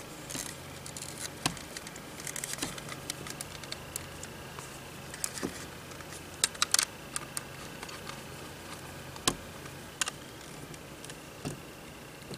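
Small irregular clicks, taps and scrapes of a screwdriver and a power cord's plastic connector being handled while wires are fitted into its terminals, with a few sharper clicks between six and seven seconds in and again just after nine, over a faint steady hum.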